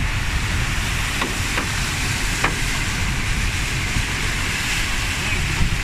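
Floodwater rushing down a street in a severe storm: a steady hiss with a low rumble beneath, and a few faint ticks in the first two and a half seconds.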